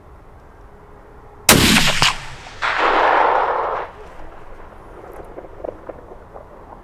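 A single rifle shot, sharp and sudden, followed about a second later by a longer, duller echo lasting about a second.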